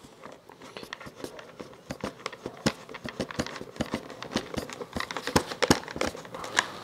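Small hand screwdriver turning screws through the foam tail of a foam RC jet into plastic receivers: a run of small irregular clicks and crackles.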